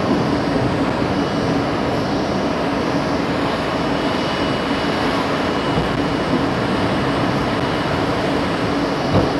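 R32 subway car rolling along elevated track at low speed: a steady rumble of wheels and traction motors with a constant low hum, mixed with heavy rain on the car. A single louder thud near the end.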